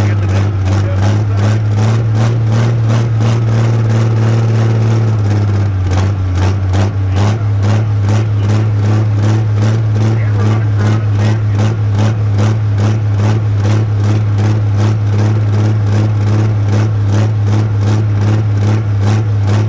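Pro stock pulling tractor's diesel engine idling, with a regular lope of about three pulses a second. The idle drops slightly in pitch about five seconds in.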